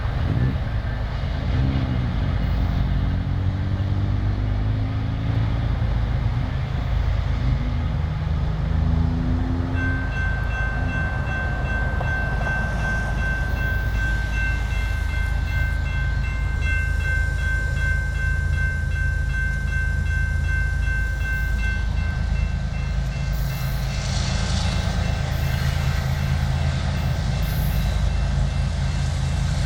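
Diesel-electric locomotives of a BNSF coal train, a GE ES44AC and an EMD SD70ACe, rumbling as they pass. The horn sounds one long blast of about twelve seconds starting about a third of the way in. The locomotive bell rings as the train gets under way after being stopped.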